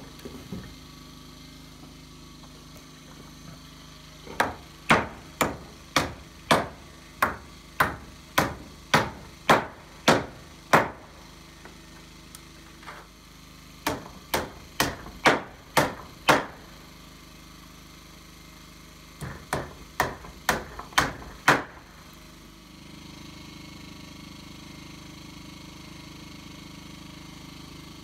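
Hand hammer driving nails into rough-sawn wooden siding boards: three runs of sharp blows at about two a second, with short pauses between runs. A steady low hum follows near the end.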